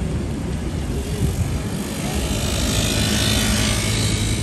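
City street traffic noise: a low, steady engine hum that swells over the second half, with a brighter hiss building about three seconds in, as a motor vehicle passes close by.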